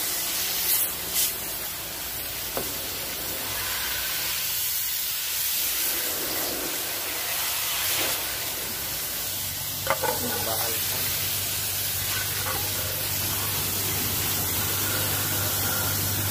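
Fine, high-pressure water jet from a hose nozzle hissing as it blasts dirt off the plastic base pan of a window air conditioner. About halfway through, a steady low hum joins in.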